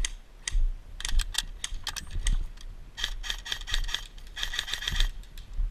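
Rapid mechanical clicking and rattling from airsoft gear: scattered sharp clicks from about a second in, then two dense runs of quick clicks, one around three seconds and one a little past four seconds.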